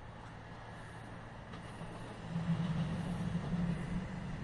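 Passenger train approaching along the track, a low rumble that grows clearly louder about halfway through.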